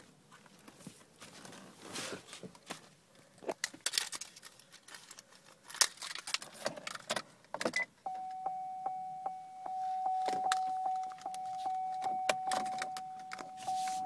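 Rustling and light knocks of handling in a Cadillac CTS cabin. About eight seconds in, a steady high electronic tone sets in with a soft tick about three times a second: the car's warning chime, sounding with the ignition on before the engine is started.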